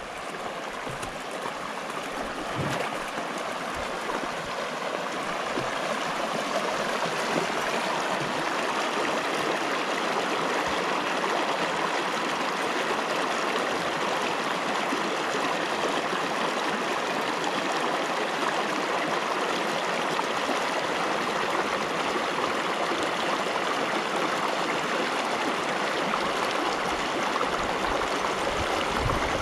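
Shallow river running over rocks and through a small riffle: a steady rush of flowing water that grows a little louder over the first few seconds.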